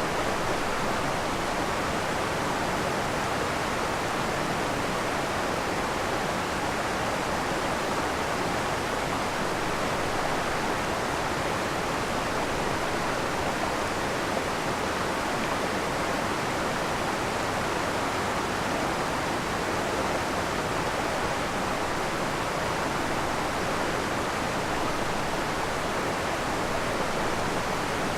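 Waterfall on a forest creek: water pouring and splashing in a steady, unbroken rush.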